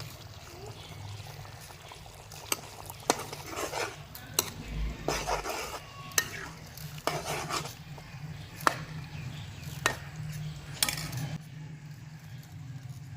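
A spoon stirring liver frying in ghee in a pot, scraping with sharp knocks against the pot now and then, over a steady sizzle. The stirring stops near the end, leaving only the sizzle.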